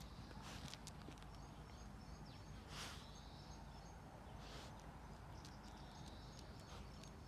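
Quiet outdoor ambience with faint bird chirps and three brief rustles of dry leaves and grass, the first, about three seconds in, the loudest.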